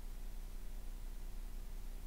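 Steady low electrical hum and hiss with nothing else: the microphone is switched off, leaving only line noise.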